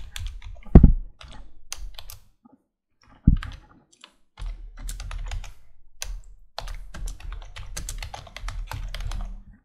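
Typing on a computer keyboard in quick runs of keystrokes with short pauses. There are two louder thuds, one about a second in and one about three seconds in.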